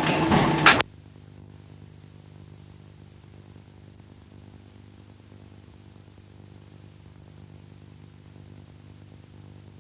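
For under a second a loud noisy sound plays, then it cuts off with a sharp click. After that only a faint, steady low electrical hum with light hiss remains.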